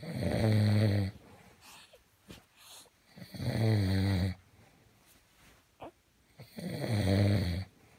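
A man snoring in his sleep: three loud, low snores, each about a second long, coming roughly every three seconds.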